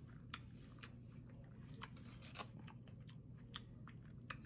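Faint chewing: soft, irregular mouth clicks and smacks of someone eating.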